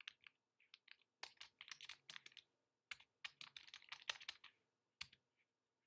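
Computer keyboard typing: faint key clicks in quick bursts with short pauses, ending in a single keystroke about five seconds in.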